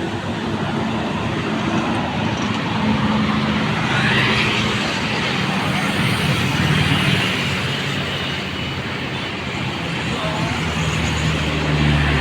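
Steady road traffic, with engines running and tyres on the road; vehicles pass close by about four seconds in and again near the end.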